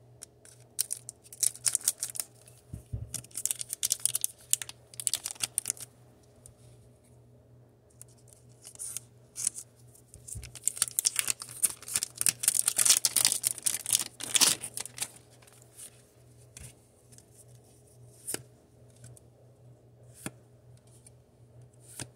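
Foil wrapper of a Pokémon booster pack crinkling and rustling as it is opened, in two long bouts, followed by a few light clicks and taps as the cards are handled.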